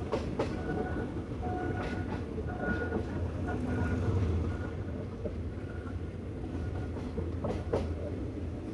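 Passenger train carriage running over the rails, heard from an open window: a steady low rumble with irregular wheel clicks over rail joints.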